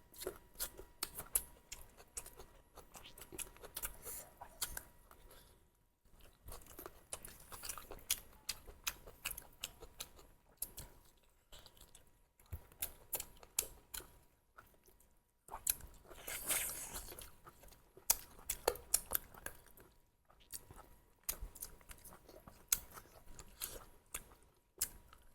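Close-miked chewing of spicy duck curry: crunches and wet smacking clicks in runs, broken by brief pauses. A denser rustling crunch comes about two thirds of the way through.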